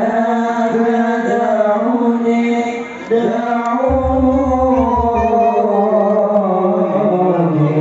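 Group of young men singing an Arabic sholawat in unison into microphones over a PA, in long, slowly gliding held notes.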